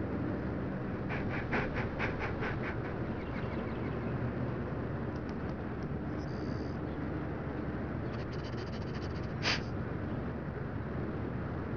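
A dog panting in quick rhythmic breaths over a steady low rumble, with a brief sharp sound near the end.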